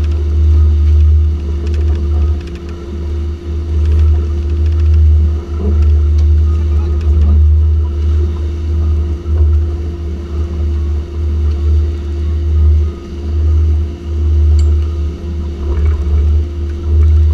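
Twin Yamaha 350 hp outboard motors running steadily with the boat under way: a steady engine hum under a heavy low rumble that swells and dips unevenly.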